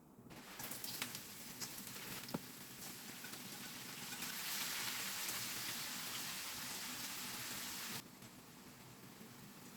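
Food sizzling in a hot pan: a steady crackling hiss with scattered small pops. It builds over the first seconds and cuts off suddenly about eight seconds in.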